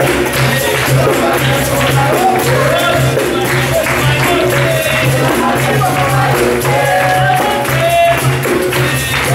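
Capoeira roda music: a pandeiro jingling over a steady, evenly repeating hand-drum beat, with group hand-clapping and voices singing.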